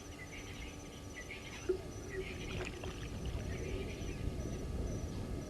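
Bush ambience: a faint high insect call pulsing in a quick even rhythm and scattered bird chirps, over a steady low rumble.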